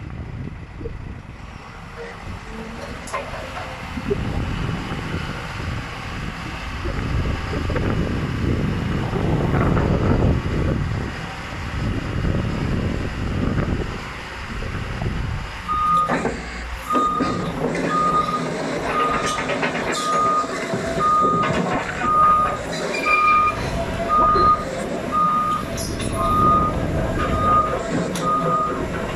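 Liebherr R922 LC tracked excavator's diesel engine running as the machine works, with a steady rumble. About halfway through, its motion alarm starts beeping evenly, a little under a second apart, and keeps going.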